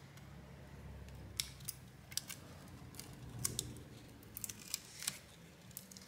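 Scattered light clicks and ticks of metal tweezers and fingertips working black adhesive tape off a laptop's metal RAM shield.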